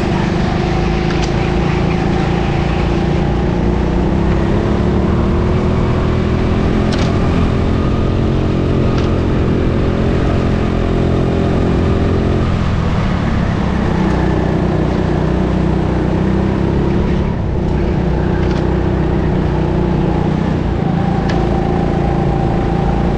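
Go-kart heard from on board at racing speed: its motor runs steadily, its pitch climbing gently, then dropping about halfway through before settling again. A few light clicks or knocks come through.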